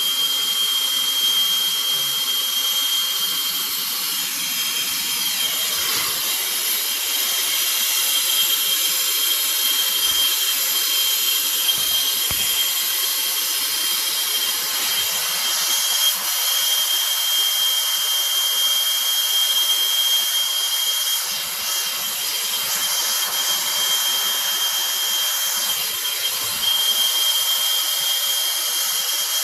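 Hand-held gas soldering torch burning with a steady hiss and a thin high whistle, heating copper pipe fittings to sweat-solder the joints.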